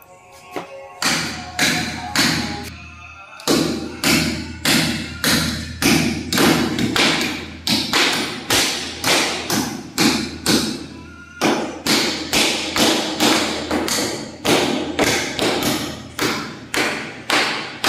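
Hammer blows driving long fasteners into a wooden frame fixed to a wall: a steady run of sharp strikes, about two a second, with brief pauses about three seconds and about eleven seconds in.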